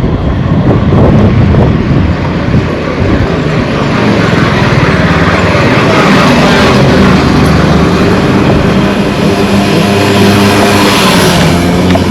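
A motor engine running loudly close by, a steady drone under a rushing noise that grows stronger about halfway through.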